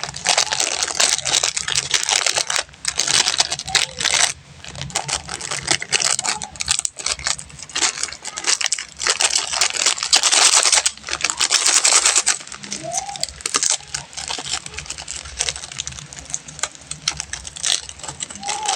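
Candy wrappers crinkling and tearing as sweets are unwrapped: a dense, continuous crackle that swells in two loud stretches, early on and around the middle.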